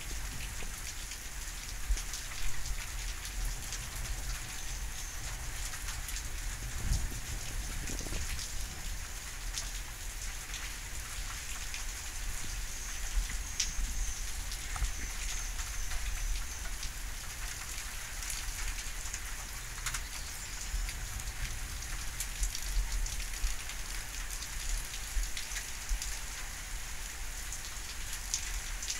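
Steady rain falling during a thunderstorm, a continuous hiss with many separate drop hits close by.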